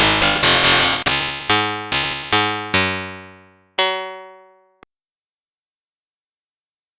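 Electronic soundtrack music with a fast, even drum-machine beat. About a second in, the beat gives way to a few separate synth chords, each left to fade. The last chord comes near four seconds in and dies away, then the sound cuts to silence.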